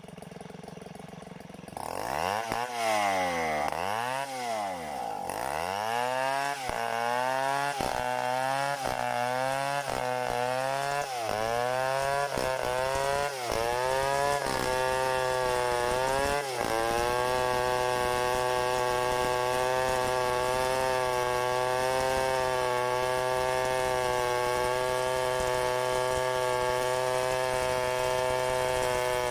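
Stihl 070 two-stroke chainsaw revved up and down in repeated blips about once a second, then held at a steady high throttle for the second half.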